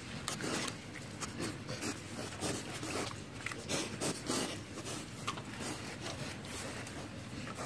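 Irregular rubbing and scraping with many small clicks as pigs nose and bite at vegetable chunks tied on a twine string, a snout rubbing close up.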